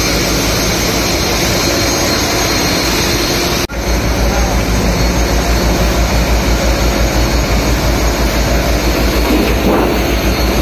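Fishing boat's engine running steadily, a loud drone with a fast, even low throb, briefly dropping out once about a third of the way in.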